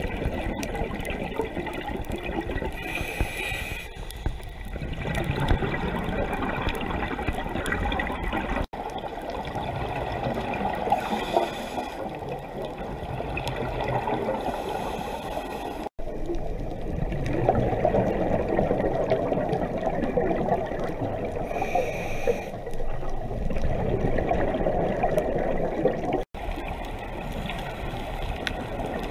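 Underwater sound picked up by a GoPro in its waterproof housing on a scuba dive: a muffled, steady rush of water with bubbling, swelling louder at times.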